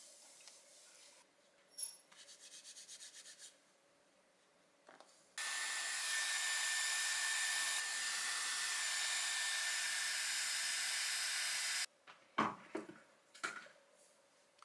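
Handheld hot-air hair styler blowing on long hair: a steady rush of air with a high whine, running for about six seconds and switching off abruptly. Before it come a click and a short run of soft rhythmic taps, and after it a few quick rubs of hands through hair.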